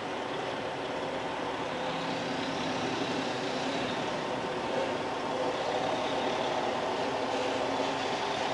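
Diesel engine of a semi truck pulling a trailer away slowly at low speed, running steadily and growing a little louder partway through.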